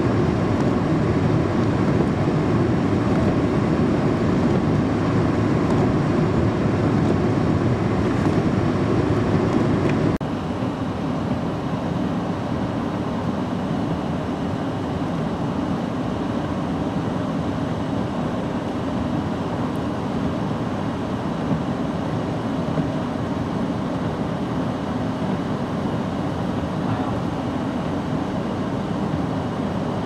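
Blizzard wind rushing steadily, with a deep rumble from wind buffeting the microphone. About ten seconds in it drops abruptly to a somewhat quieter rush.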